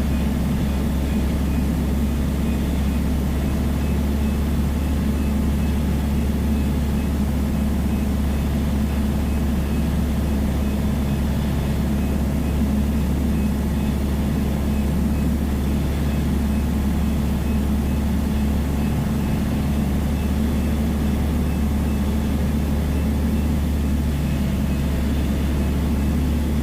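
Steady drone of a Piper Dakota's single piston engine and propeller in level flight, heard from inside the cockpit; it holds an even pitch throughout.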